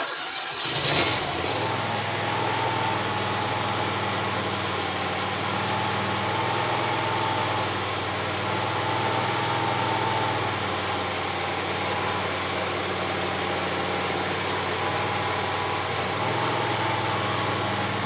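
The Loncin engine of a homemade skid steer runs steadily at raised speed, driving the hydraulics, with a higher whine that rises and falls slowly over it. The sound comes in abruptly at the start.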